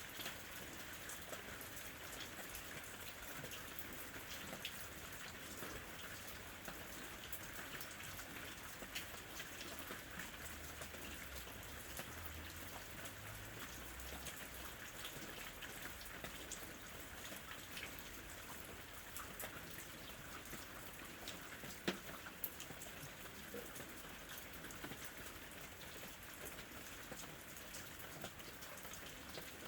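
Steady, fairly faint rain falling, with many single drops ticking; one sharper drop stands out about three-quarters of the way through.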